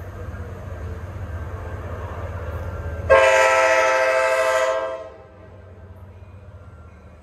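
Train rumbling as it approaches, then one loud blast of its horn about three seconds in, lasting under two seconds before dying away.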